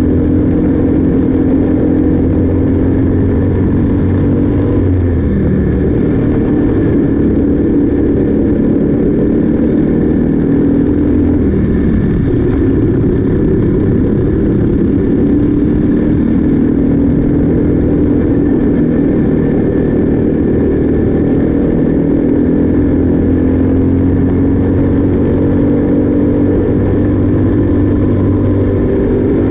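Briggs & Stratton LO206 four-stroke kart engine running at race pace. Its pitch dips briefly through corners, about 5 and 12 seconds in, and climbs slowly again as the kart accelerates.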